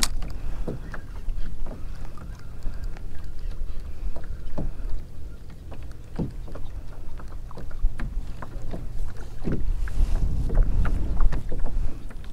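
Wind buffeting the microphone over small waves lapping and slapping irregularly against a fishing kayak's hull, with a stronger gust near the end.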